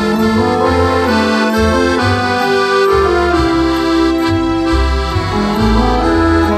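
Background music: a sustained melody over a bass line that steps from note to note.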